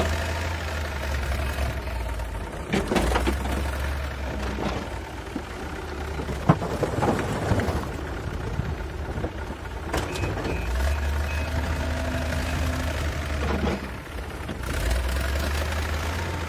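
Backhoe loader's diesel engine running under changing load as the front bucket lifts and tips a load of concrete blocks into a tractor trolley, with several sharp knocks and clatter from the blocks.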